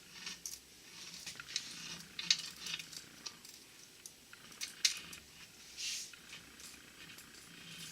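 Light, scattered clicks and clinks of small steel transmission parts being handled during disassembly of a Borg-Warner T-10 four-speed. There are two sharper clinks, about two and five seconds in, and a brief scrape near six seconds.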